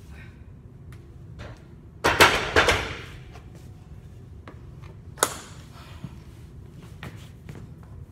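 Barbell loaded with bumper plates set back into the squat rack's hooks: a loud metal clatter of several quick impacts lasting about a second. A single sharp knock follows a few seconds later.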